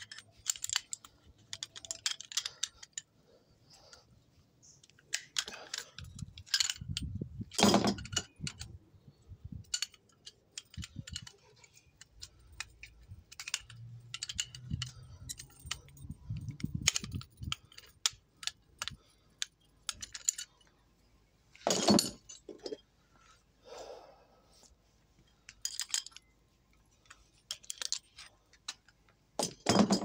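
Metal clicks and clinks of two old adjustable wrenches against a stuck quick-connect fitting and ball valve as the fitting is worked loose, coming in scattered bursts, the loudest about 8, 22 and 30 seconds in.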